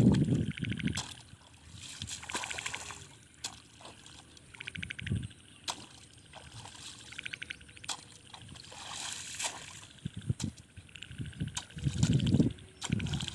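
A long-handled hoe chopping into and dragging wet mud in a flooded rice paddy, with water sloshing and splashing around the blade. The heaviest strokes come near the start, about five seconds in, and near the end.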